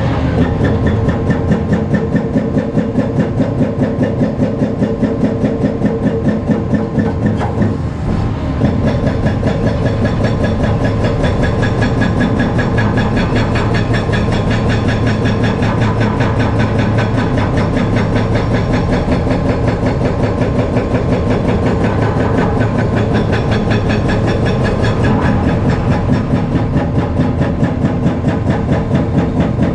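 Cat 335 Next Gen excavator's C7.1 diesel running steadily under work, with a fast, even pulsing throughout.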